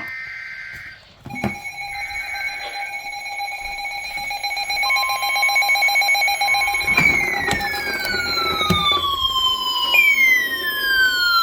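Emergency alert tones from alert receivers, several sounding over one another. A short burst of data screech is followed by a steady electronic alert tone from about a second in, another steady tone joins about five seconds in, and two long falling electronic tones sweep down from about seven and ten seconds in.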